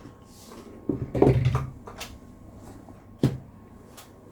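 Handling sounds as items from a fishing-reel box are set aside on a surface: a few sharp knocks and clicks with light rustling, the loudest cluster about a second in and single knocks near the middle and end.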